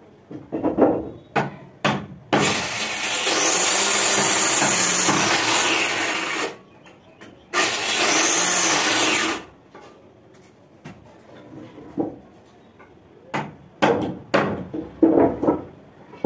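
Handheld electric planer shaving a wooden plank in two passes, the first about four seconds long, the second about two. Short knocks of wooden pieces being handled come before and after the passes.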